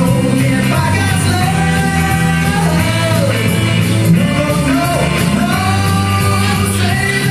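A song playing: a singing voice over a band with a steady bass line.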